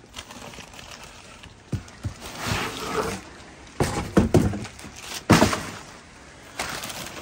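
Cardboard box and plastic-wrapped rubber cargo liner panels being handled: the packed roll is slid out of the box and the panels set down on a concrete floor, giving a run of knocks, scrapes and plastic rustles, with the sharpest knock about five seconds in.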